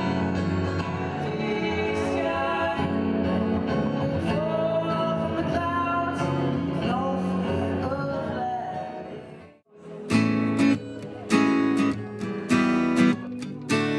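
Live acoustic set: two guitars with a man singing over them. The song fades out about two thirds of the way in. Rhythmic strummed acoustic guitar chords follow, in a steady pattern of separate strokes.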